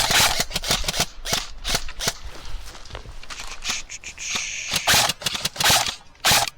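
Airsoft guns firing in rapid clattering bursts, thickest in the first couple of seconds and again near the end, with sparser single shots in between.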